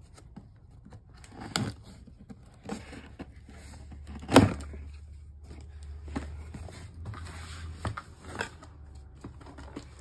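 Scissors cutting the tape on a cardboard box, then the box being handled and its lid opened: scraping and rustling of cardboard with several sharp knocks, the loudest about four and a half seconds in.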